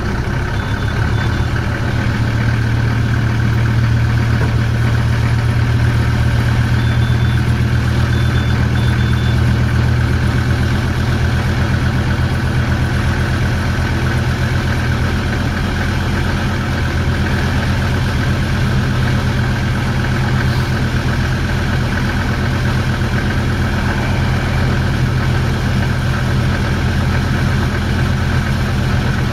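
Motorboat engine running steadily at low speed, a constant low drone with water and hull noise over it.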